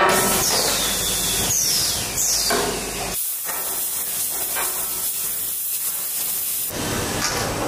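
Loud hiss of compressed air or gas from a tube laser cutting machine with automatic loading. It starts suddenly, with a few falling whooshes in the first two and a half seconds, then becomes a steady high hiss from about three seconds in until shortly before the end.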